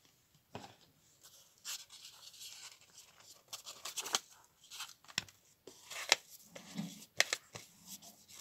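A flat paintbrush brushing clear glue onto comic-book paper strips, with irregular scratchy strokes and small taps and rustles of the paper. There is a light knock about half a second in as the plastic glue bottle is set down.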